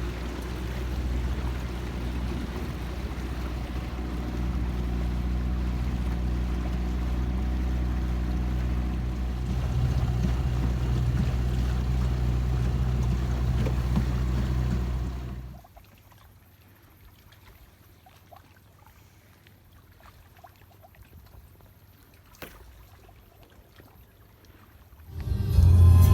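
Boat engine running steadily underway, a low hum with wind and water noise over it. About fifteen seconds in it cuts off abruptly to a much quieter stretch with a few faint clicks, and music comes in at the very end.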